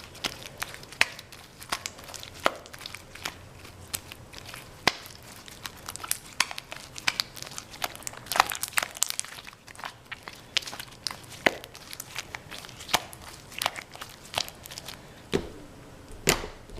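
Hands kneading and stretching sticky, watery glue slime, giving irregular sharp clicks and pops, a few a second.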